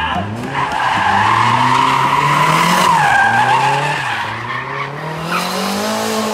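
A drift car sliding past with its tyres squealing, the engine revs climbing, dropping briefly about three seconds in, then climbing again.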